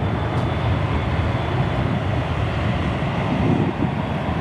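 Jet airliner engines: a steady, loud rumbling roar with a faint whine held on top.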